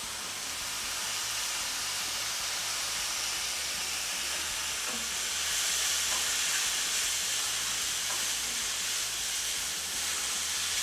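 Sliced mushrooms and red onion sizzling in a hot nonstick frying pan, stirred with a silicone spatula; the steady hiss swells a little about halfway through.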